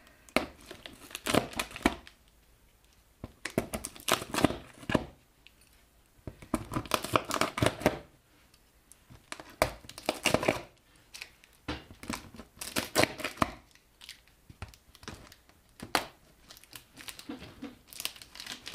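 Packing tape on a cardboard shipping box being slit, torn and peeled back while the staples are pried out: short bouts of tearing and crinkling a couple of seconds apart.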